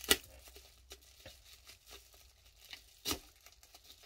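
Plastic bubble wrap being unwrapped by hand: light crinkling and rustling, with two sharper, louder crackles, one right at the start and one about three seconds in.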